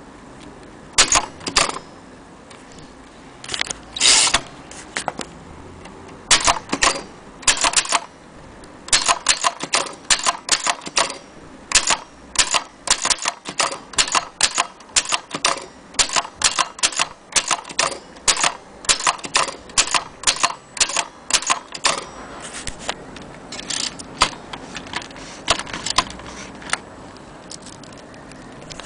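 Typing on a 1930 Corona portable typewriter: sharp key clacks in irregular runs. There are a few separate strikes at first, then a long stretch of fast typing, thinning out to single strikes near the end.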